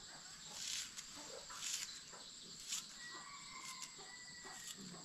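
Knife shaving strips off a vegetable into a steel bowl, a short scraping stroke about once a second, over the steady chirring of crickets. A faint drawn-out call, likely a distant rooster, comes in about three seconds in.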